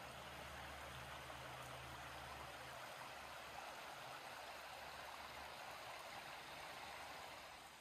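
A small woodland stream running over stones, a faint, steady, even rush of water.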